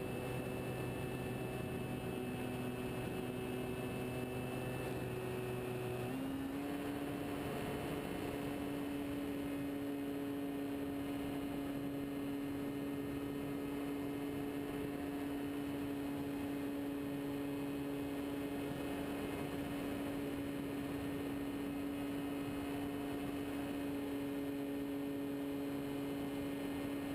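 Engine of a radio-controlled scale de Havilland Tiger Moth model running steadily in flight, a constant drone with propeller hum. It changes to a new steady note about six seconds in.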